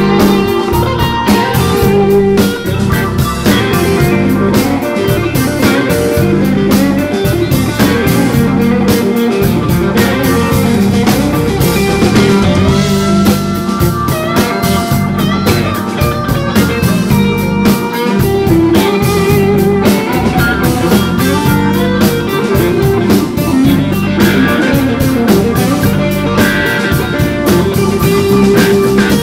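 Live blues-rock band playing without a break: electric guitar lead lines with bent, gliding notes over bass guitar and drum kit.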